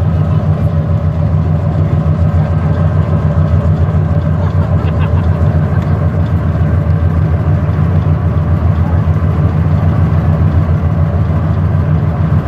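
Sightseeing boat's engine running steadily, a loud continuous low rumble, with wind buffeting the microphone on the open deck.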